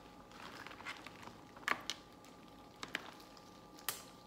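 Crab shell being cracked and snipped open with scissors: several sharp cracks with faint rustling between, the loudest about a second and a half in.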